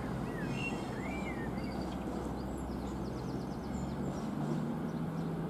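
CrossCountry Class 220 Voyager diesel-electric train pulling away, its underfloor diesel engines giving a steady low drone whose note changes about four seconds in. A few small birds chirp over it.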